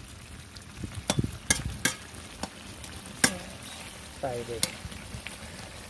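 Metal spatula knocking and scraping against a cooking pan as a potato, pointed gourd and soya chunk curry is stirred, with several sharp clinks over a steady sizzle from the simmering gravy.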